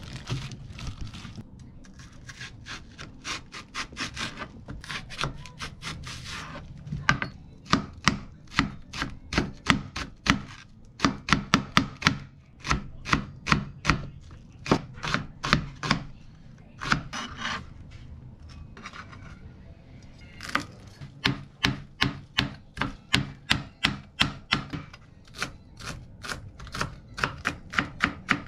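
Kitchen knife chopping on a plastic cutting board, first slicing green onion and then chopping leafy herbs: quick even strokes, about four a second, in runs of a few seconds with short pauses between.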